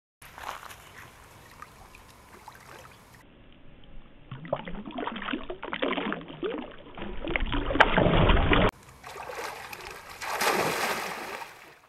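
Water splashing and sloshing as a person thrashes and wades in a shallow pond beside a wooden dock. The splashing grows louder over several seconds to its loudest about eight seconds in, breaks off suddenly, then swells again.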